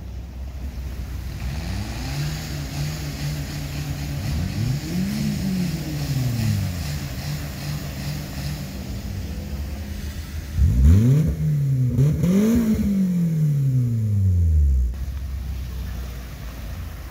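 Suzuki Jimny 4x4s driving past one after another, their engines rising and falling in pitch as each goes by. The loudest pass comes about two-thirds of the way through, with two quick revs, and stops suddenly a couple of seconds before the end.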